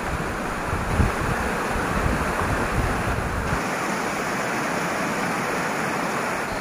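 Steady rushing of a fast-flowing river, with low rumbles of wind on the microphone until about halfway through.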